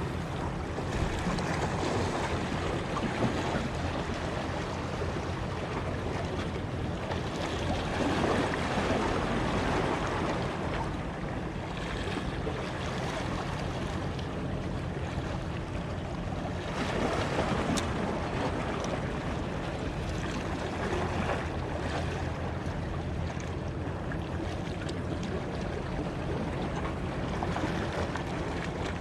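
Wind buffeting the microphone over sea water washing and lapping, with a low steady hum underneath; the rush swells louder twice, about eight and seventeen seconds in.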